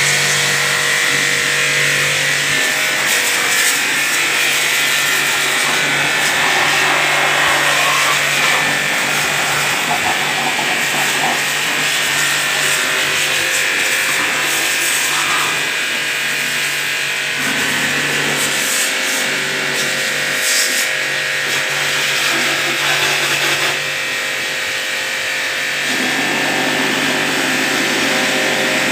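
Pressure washer running: a steady hum from the pump under the loud hiss of its water jet spraying over a motorcycle engine and parts.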